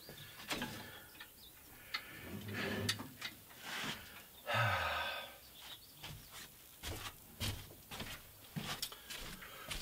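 Scattered clicks, knocks and rattles from a metal Harbor Freight drywall lift being handled and shifted on the floor, with a louder half-second grating noise and thump about halfway through.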